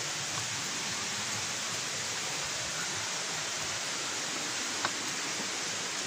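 Steady rush of waterfall water tumbling down a hill stream, with a single light tap about five seconds in.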